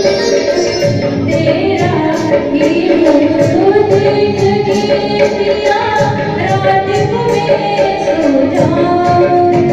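A woman singing a Hindi film song live into a microphone, backed by keyboard, guitar and a steady percussion beat, amplified through a PA in a hall.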